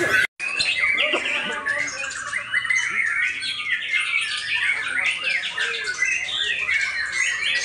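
Many caged white-rumped shamas (murai batu) singing at once, a dense overlapping mix of rapid rising and falling whistles and chirps, broken by a brief dropout just after the start.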